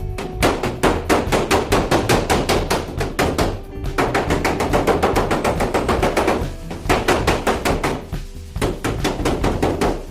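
Rapid knocking, about six sharp strikes a second, in runs of a few seconds broken by short pauses, over background music.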